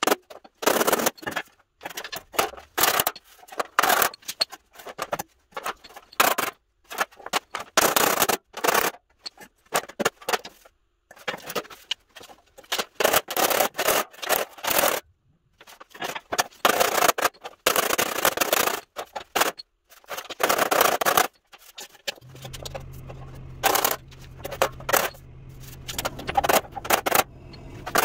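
A hammer beating dents out of a steel pickup tailgate panel, rapid runs of sharp metal blows broken by short pauses. A steady low hum sets in about three-quarters of the way through.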